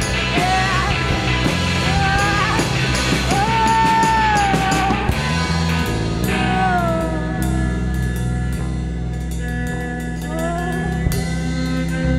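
Live rock band playing with a psychedelic sound: drums, a steady bass line and a lead melody that slides and bends in pitch. The cymbals drop back about halfway through.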